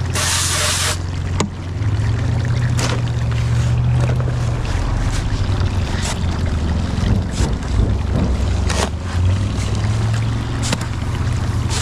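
Garden hose spraying water into a wheelbarrow of sand and cement, cut off about a second in. Then a mortar hoe is pushed and pulled through the wet mortar, scraping and sloshing, with scattered sharp knocks of the hoe against the wheelbarrow pan.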